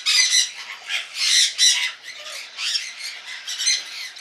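Baby cockatiel chicks making harsh, high food-begging calls during handfeeding, repeated about two to three times a second.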